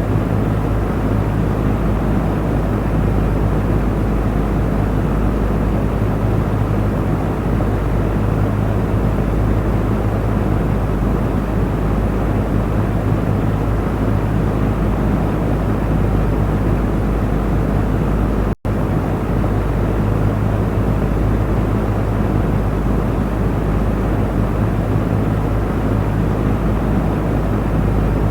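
Electric fan running steadily: an even whoosh of moving air over a low motor hum. The sound drops out for a split second about two-thirds of the way through, then resumes unchanged.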